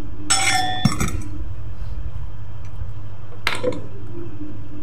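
Metal clinking with a short ring, about half a second in and again after three and a half seconds, as a Honda scooter's rear CVT pulley and its steel anvil plate are handled. A steady low hum runs underneath.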